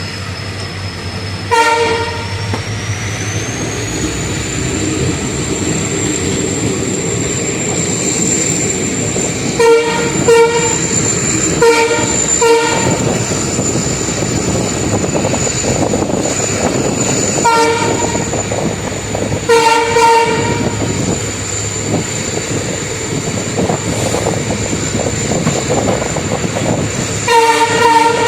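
WDP-4 diesel locomotive's horn sounding a string of short blasts, several in pairs, with a longer blast near the end. Between the blasts is the steady rumble and clatter of the moving train on the track.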